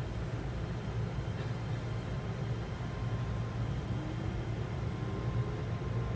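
Keihan 13000 series electric train at the platform: a steady low rumble, with a faint whine that starts rising in pitch about four seconds in.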